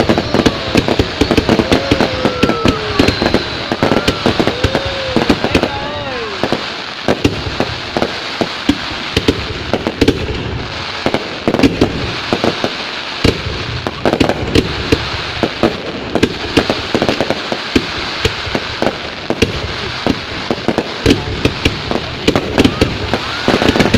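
New Year fireworks going off without pause: a dense run of bangs and crackles.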